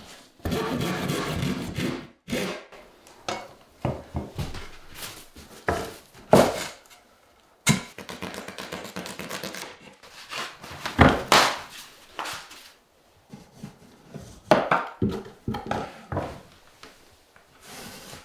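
Hands-on work in a small room: irregular knocks and thunks, the loudest about eleven seconds in, with two longer stretches of scraping, one right at the start and one about eight seconds in.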